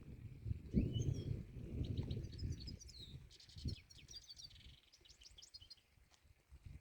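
A songbird singing: quick chirps and short rising whistles, with a fast trill in the middle. Beneath it a low rumble, loudest in the first half, carries most of the loudness.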